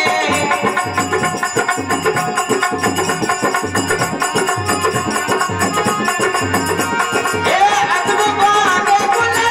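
Live devotional folk music: a harmonium playing held notes over a steady percussion beat, with a man's singing voice coming in about three-quarters of the way through.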